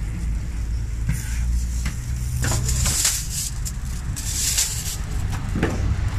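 Food sizzling on a steel taco griddle as tortillas and meat are worked, with a few sharp metal knocks and two louder hissing swells about three and four and a half seconds in. A steady low rumble of traffic engines runs underneath.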